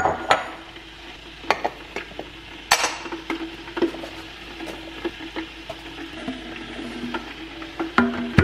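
Ceramic mugs and canisters knocking and clinking on a granite countertop as tea is made, about ten sharp strikes with the strongest a little under three seconds in, over a steady low hiss and hum.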